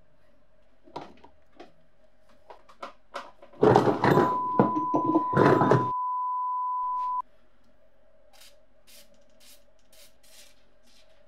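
Rusty cast-iron vise parts being handled and knocked on a wooden bench: scattered clicks, then a dense, loud run of metal knocks and scraping. A steady beep-like tone is held for about three seconds and cuts off suddenly. Near the end come short hissing spurts of WD-40 being sprayed through its straw onto the vise jaw.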